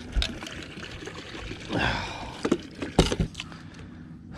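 Water trickling and dripping off a landing net and a freshly netted smallmouth bass as the fish is handled, with a few sharp knocks.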